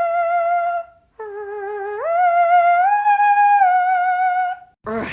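A person's voice holding long, high, pure sung notes with a slight wobble, like a falsetto "ooo". The first note ends about a second in. After a short break a second note starts lower, jumps up in pitch, and is held for a few seconds before stopping just before the end.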